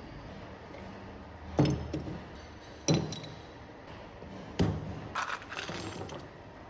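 Metal parts clanking together: three sharp knocks with a brief ringing, the first about a second and a half in, then a short jangling rattle.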